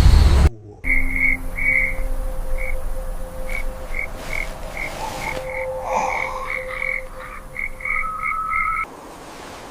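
A loud rushing noise cuts off abruptly half a second in. After it, frogs call in a string of short, high chirps at uneven spacing over faint steady lower tones.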